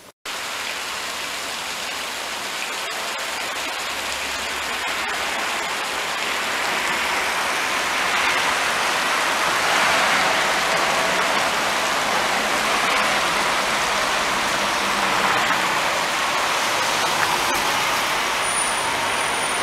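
Steady rushing noise of street traffic heard from above, an even wash of sound with no single event standing out, slowly growing louder.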